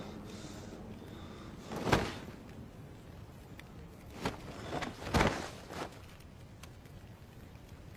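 Film fight sound effects: heavy thuds of blows landing and a body hitting the ground. There is one hard hit about two seconds in, then a run of four more between about four and six seconds in, the loudest in the middle of that run.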